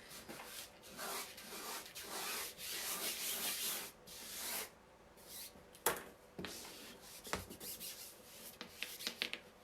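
Hands rubbing and handling a Chalk Couture adhesive transfer sheet on a craft surface: a run of scratchy rubbing strokes, then a few separate sharp clicks in the second half.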